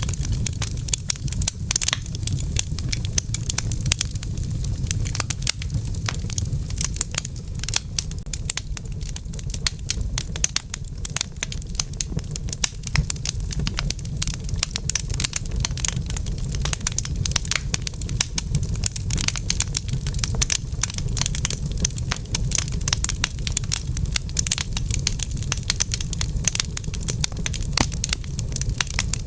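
Wood fire in a fireplace crackling: a dense, irregular run of small pops and snaps over a steady low rumble.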